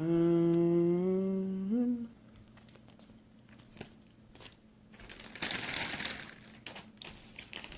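A man humming a short phrase of about three rising notes for two seconds, the first held for about a second. From about five seconds in, a plastic packaging bag crinkles as it is handled.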